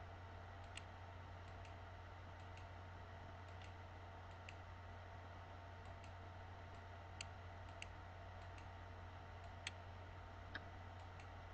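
Faint computer mouse clicks, single and irregular, about one a second, as points of a polygonal lasso selection are set, over a steady low hum.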